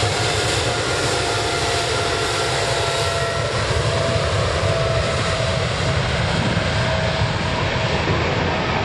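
Twin jet engines of a Boeing 777 airliner running at high power during its take-off roll: a steady, loud roar with a faint whine.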